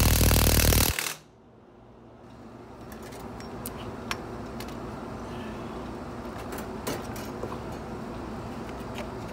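Milwaukee M18 cordless impact wrench hammering on a truck lug nut, cutting off suddenly about a second in. Then a few light metallic clinks over a steady low background noise.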